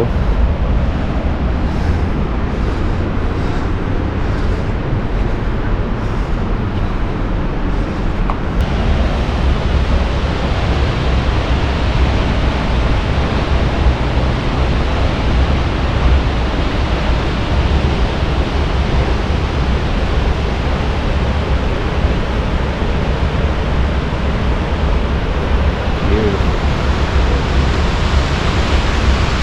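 Steady rushing roar of a large waterfall, mixed with wind buffeting the microphone. The noise changes abruptly about eight and a half seconds in, then carries on just as steadily.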